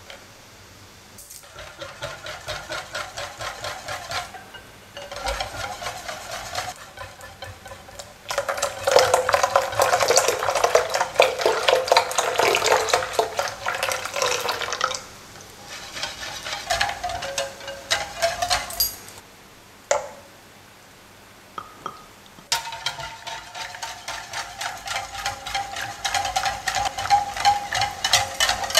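Wire balloon whisk beating crepe batter in a glass bowl: rapid, rhythmic clinking of the wires against the glass, in several spells with short pauses, loudest about ten seconds in.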